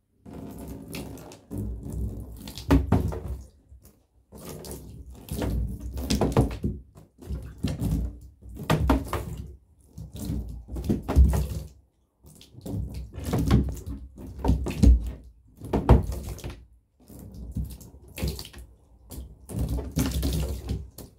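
Water poured from a glass in a thin stream, splashing onto the floor of an empty bathtub in a dozen or so bursts a second or two long, with short gaps between.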